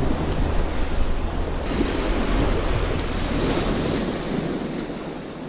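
Small waves washing onto a sandy shore, with wind buffeting the microphone; the wind rumble drops away about four seconds in and the wash fades near the end.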